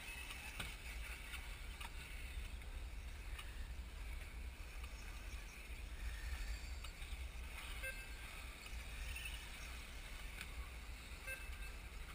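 Electric brushless 1/10 scale RC buggies racing on the track, a faint high motor whine with scattered clicks, under a steady low wind rumble on the microphone.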